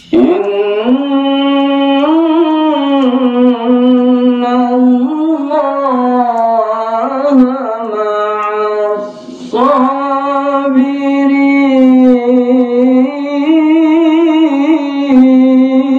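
A man's voice reciting the Qur'an in the melodic tilawah style into a handheld microphone: two long, held phrases with wavering ornamental turns, broken by a short breath about nine seconds in.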